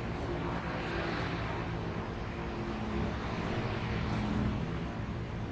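A motor vehicle's engine droning, growing louder about three to four seconds in and then fading, over a steady background noise.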